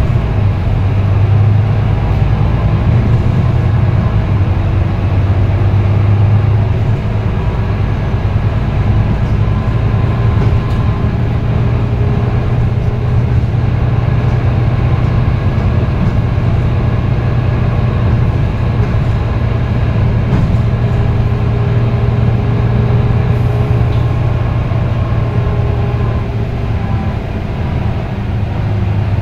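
Volvo B9TL double-decker bus with a Voith automatic gearbox, heard from inside on the lower deck while it drives. Its six-cylinder diesel gives a steady low drone, with faint whines that rise and fall over it.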